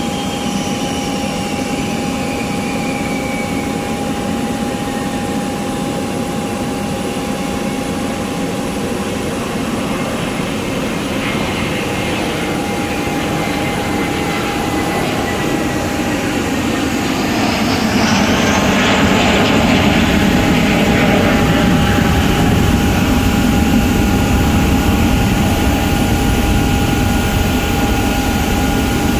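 Airplane engine noise: a steady rumble with a constant whine, growing louder about eighteen seconds in and staying loud.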